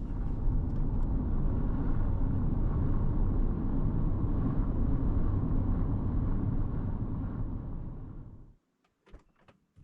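A car driving on the road: a steady rumble of engine and tyre noise that fades out about eight and a half seconds in, followed by a few faint clicks.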